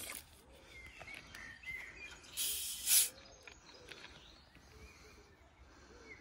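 Quiet woodland ambience with faint, repeated bird calls, broken about two and a half seconds in by a short, loud hiss-like rustle.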